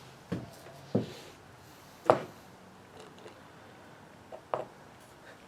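Winch parts handled during a teardown: a handful of separate sharp knocks and clunks, the loudest about two seconds in and a quick pair near the end.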